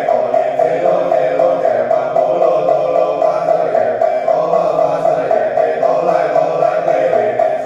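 Buddhist sutra chanting: voices reciting in a steady, unbroken monotone.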